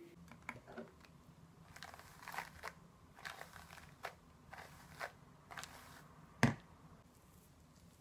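Natural coily hair rustling and crinkling as it is twisted by hand close to the microphone: a series of short crinkly strokes, with one sharp click about six and a half seconds in.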